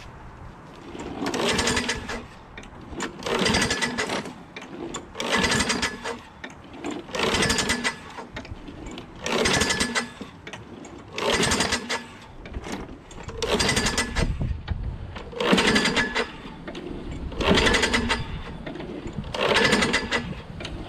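Craftsman lawnmower's 6.5 hp Briggs & Stratton Quantum engine running unevenly, swelling up and dropping back about every two seconds. The owner takes the uneven running for a dirty carburetor.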